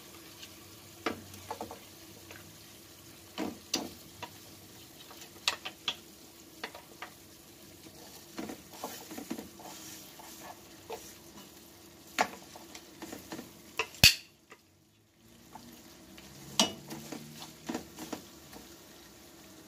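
A wooden utensil knocking and scraping against a nonstick pan as pork chops are turned and pushed around in hot sauce, over a faint sizzle. Irregular knocks come every second or so, with a louder knock about two-thirds of the way through and then a moment of quiet.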